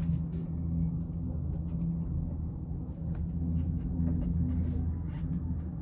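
Steady low hum and rumble inside a cable car gondola as it travels along its cable, with a few faint ticks.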